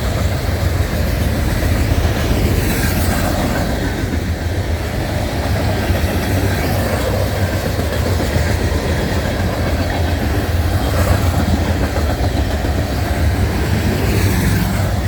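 Empty coal train rolling past, a steady loud rumble of locomotives and freight cars on the rails.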